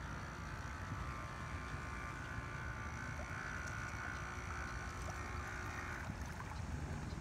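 Whine of a radio-controlled Osprey model boat's small electric motor running steadily, dropping away about six seconds in, over a low steady rumble.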